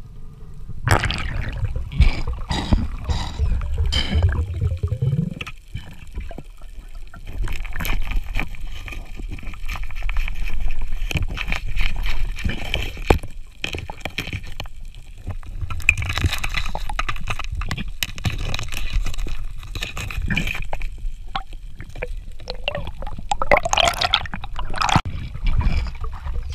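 Underwater bubbling and gurgling that comes in surges every several seconds, over a low rumble, with many scattered short clicks and knocks.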